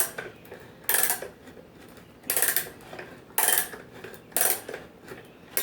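Old ratcheting hand brace and bit boring into a wooden log, worked back and forth in short strokes. The ratchet mechanism clicks in brief rasping bursts, about one a second.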